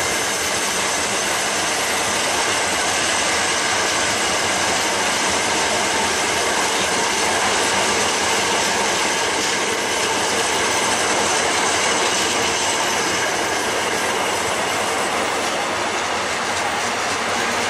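Rail wagons of a long track-maintenance train rolling past on a curve: steady wheel and rail noise with clickety-clack over joints and a continuous high wheel squeal.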